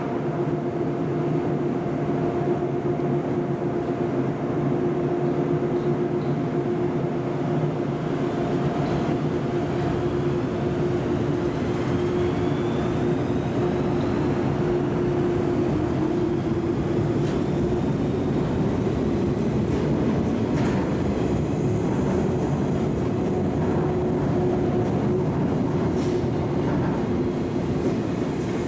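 JR 485-series 'Yū' joyful train pulling out and running past, a steady hum from its underfloor equipment over the rumble of the wheels, with a few sharp clicks from the wheels on the rails in the second half.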